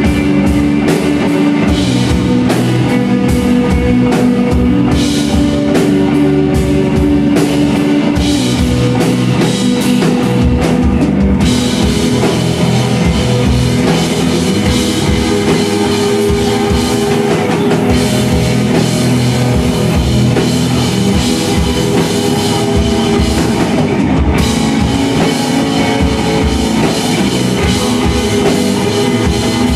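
Live rock band playing loud and continuous: electric guitars over a drum kit with steady beats.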